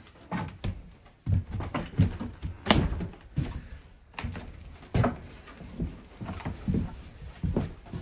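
A run of irregular knocks and thuds, about two a second.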